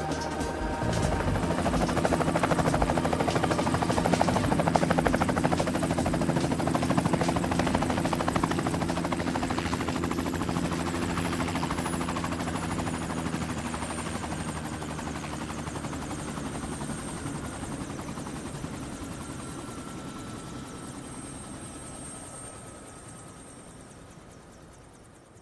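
Helicopter rotor chop and turbine engines running down after landing. The rotor beat is loudest early on and then fades steadily, while a high turbine whine slowly falls in pitch until the sound has nearly died away.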